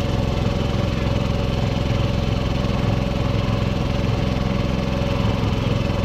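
Small engine driving a long-shaft water pump, running steadily at a constant speed with an even hum, pumping water out of the pond.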